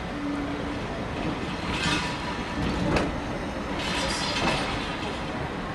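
Passenger train behind a BR Standard Class 4 steam locomotive running along the rails: a steady rumble and hiss, with brief louder rushes about two and four seconds in and a single sharp click near the middle.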